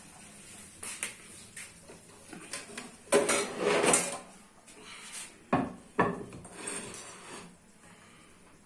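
Kitchen utensils and dishes being handled, with scattered clicks, a loud clatter about three seconds in, and two sharp knocks around six seconds.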